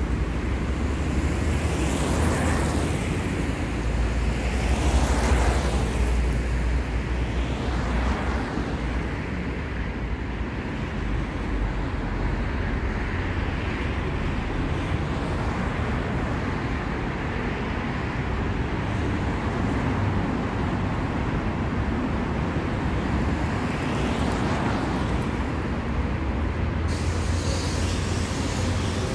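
City street traffic: a steady rumble of engines and tyres, with several vehicles passing close by, the loudest about five seconds in.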